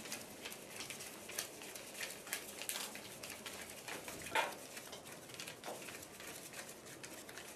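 Paper banknotes being counted by hand: a fast, irregular run of crisp flicks and rustles as notes are peeled off wads of Turkish lira, with one louder rustle about four seconds in.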